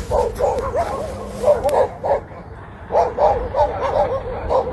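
Dogs barking in quick runs of short, high-pitched yaps, with a lull of about a second in the middle.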